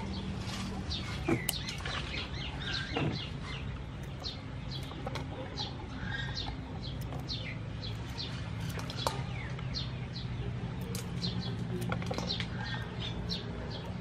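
Small birds chirping over and over in quick, short downward-sweeping notes, with a few warbled calls, over a steady low hum. A few sharp clicks come from kitchen scissors snipping green peppercorn stems.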